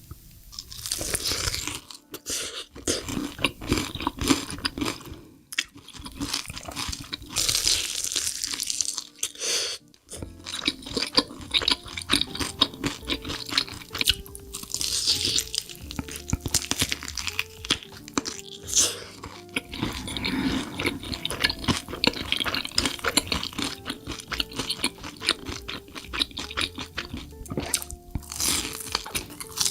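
Close-miked eating: crunchy bites and chewing of food, with background music underneath.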